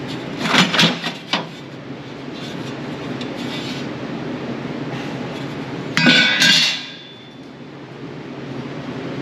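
Hammer blows on sheet steel: four quick metallic strikes in the first second and a half, then a louder clang with a short ringing note about six seconds in. A steady hum runs underneath.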